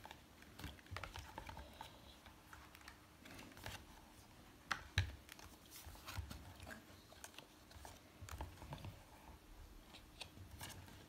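Thick cardboard pages and flaps of a children's board book being turned and lifted by hand: scattered light taps and clicks of card, with one louder knock about five seconds in.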